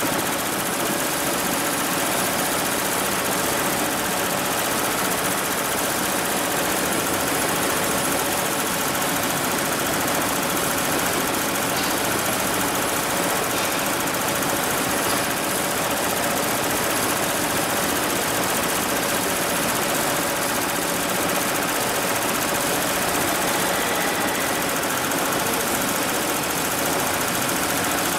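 HIGHTEX 7201 single-head, 12-needle computerised embroidery machine running steadily as it stitches lettering onto hooped fabric, the needle working in a fast, even mechanical rhythm.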